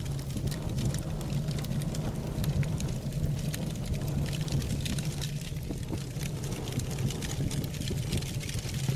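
Fire from a mass of burning safety matches packed around a frying pan: a steady low rumble of flame with frequent sharp crackles.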